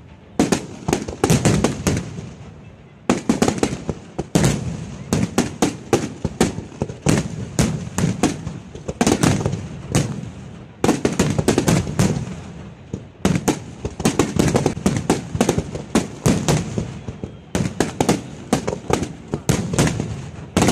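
Professional fireworks display: aerial shells bursting in rapid volleys, many sharp bangs a second, with short lulls every few seconds.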